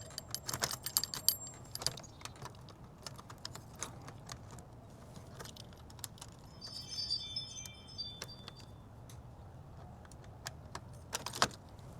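Small metal door-lock parts and screws clinking and jingling as they are handled and fitted, with a quick run of clicks at the start, a ringing jingle in the middle and a couple of sharper clicks near the end.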